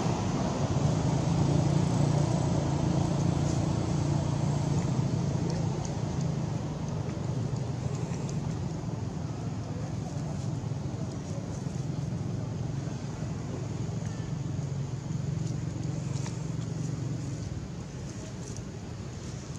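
Low, steady rumble of a motor vehicle engine running, growing gradually fainter toward the end.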